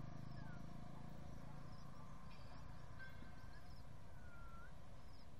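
Outdoor ambience: birds giving a few short whistles, one falling, one level and one dipping then rising near the end, with small high chirps between, over a faint low hum.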